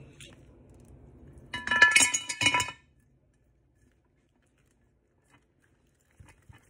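Glass jar clinking and rattling as it is handled, ringing briefly in two quick bursts about a second and a half in, followed by a couple of faint taps near the end.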